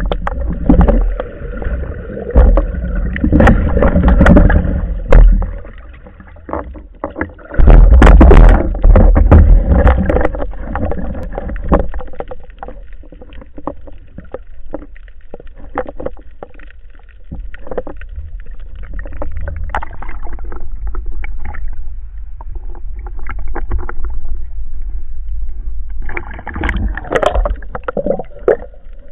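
Muffled water sloshing and gurgling around a diver's camera, with scattered knocks and clicks. It swells loudly twice in the first half, then settles to a quieter wash.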